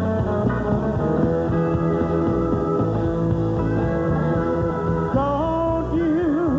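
Band music with guitar in a stretch without lyrics; about five seconds in, a held, wavering note comes in over the band.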